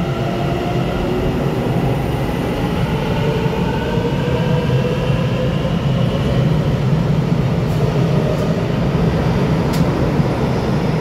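Taiwan Railway EMU900 electric commuter train pulling out along an underground station platform: a steady rumble of wheels and running gear, with the traction motors' whine rising gently in pitch as it gathers speed.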